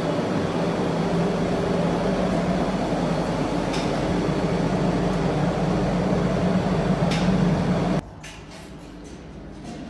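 Freight elevator drive, hoist motor and Montan gearbox, running with a steady low hum, with two sharp ticks along the way. About eight seconds in the drive stops abruptly, leaving a much quieter background with a few faint clicks.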